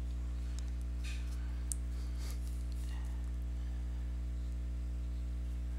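Steady low electrical hum, a mains buzz in the recording, with a few faint light ticks.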